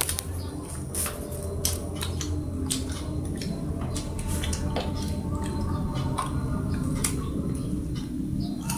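Baby monkey chewing and biting guava: irregular small wet clicks and smacks over a steady low hum.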